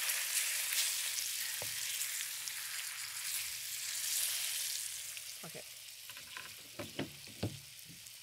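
Cornstarch-dusted salmon fillets sizzling in hot oil in a wok over high heat as they are turned over. The sizzle is strong for about five seconds, then dies down, with a few sharp clicks near the end.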